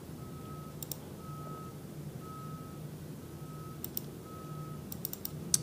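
Electronic beeping: a single high tone repeating about once a second, like a reversing alarm, with a few short clicks in between.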